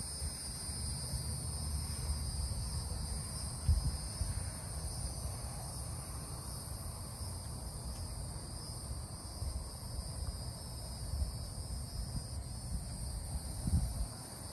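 Steady high-pitched insect chorus of crickets or similar insects, with a low rumble of wind or handling underneath and two soft thumps, about four seconds in and near the end.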